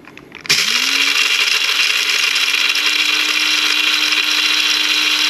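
BLACK+DECKER push-button electric blade coffee grinder switching on about half a second in. Its motor spins up within a second to a steady whine, over the loud noise of whole coffee beans being chopped.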